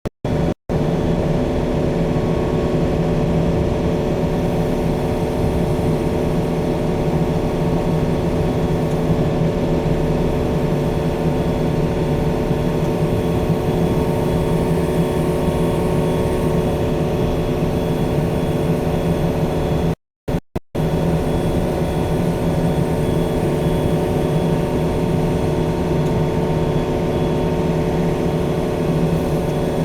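Yanmar diesel engine running steadily under load as the machine drives. The sound cuts out briefly just after the start and again about two-thirds of the way through.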